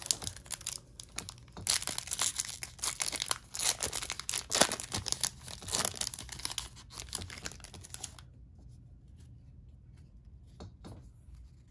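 Trading-card pack wrapper being torn open and crinkled: dense crackling tears and crumples for about eight seconds, then it drops to a few faint light clicks.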